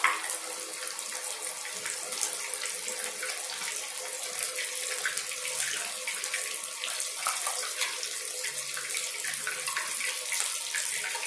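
Breaded fish fillets deep-frying in hot oil in a nonstick pan: a steady sizzle with dense crackling and popping. A single sharp knock comes right at the start, and a faint steady hum sits underneath.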